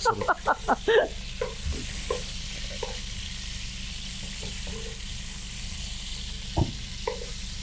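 Cubes of lamb tail fat and meat sizzling and spattering in hot oil and ghee in a pot, stirred with a silicone spatula that scrapes softly now and then. One knock sounds about six and a half seconds in.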